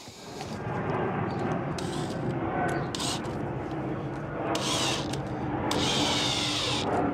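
Cordless drill running, starting about half a second in and carrying on with changing intensity.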